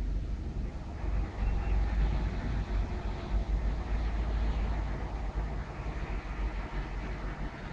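Wind buffeting the microphone in a thunderstorm, with a long low rumble that swells about a second in and slowly fades over several seconds.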